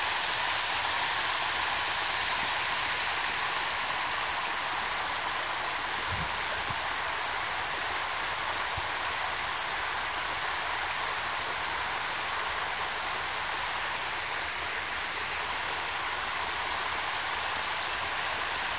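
Muddy floodwater running over a low-water crossing and cascading down the dirt bank: a steady, even rushing. The creek is still overflowing the road after heavy rainfall.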